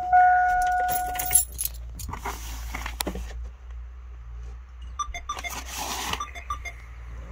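Van's dashboard warning chime tone repeating about once a second, stopping about one and a half seconds in, then the crinkling rustle of a plastic-wrapped owner's manual being handled and set on the dash, twice.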